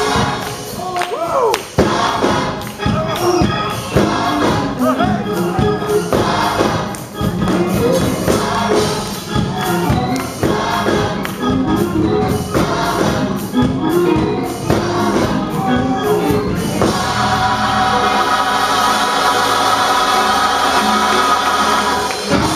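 Gospel choir singing with a regular beat under it. About seventeen seconds in the beat stops and the choir holds one long chord.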